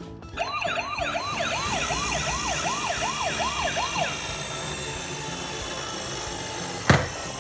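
Toy ambulance minicar's electronic siren sounding a fast rising-and-falling yelp, about three sweeps a second, that stops about four seconds in, over background music. A sharp knock near the end.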